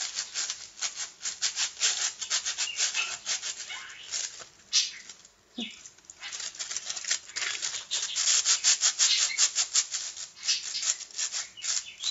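Aluminium foil crinkling and crackling as it is handled and squeezed in the hands close to the microphone, in dense irregular bursts. It eases off briefly about five seconds in, then picks up again.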